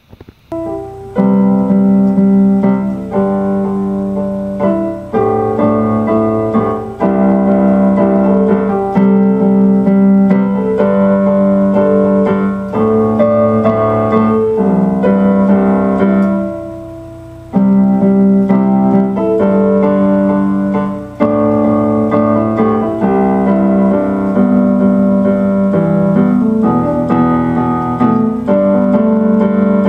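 Solo piano-voiced keyboard music: slow, sustained chords that change every second or two, with a brief pause about sixteen seconds in.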